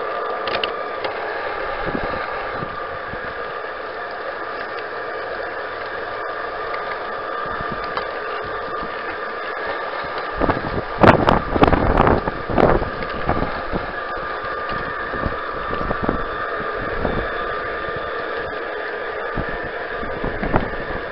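G-scale garden-railway train running, heard from a camera riding aboard: a steady motor-and-gear whine with wheel rumble, and a cluster of loud clacks about halfway through.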